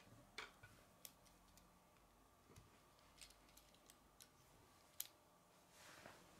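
Faint, scattered clicks of plastic K'nex parts being handled as a flexible rod is fitted into a spinner hub, the sharpest click about five seconds in.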